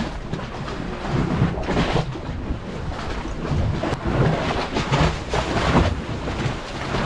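Strong gusty wind buffeting the microphone in irregular low rumbles, over the wash of choppy sea against a concrete breakwater.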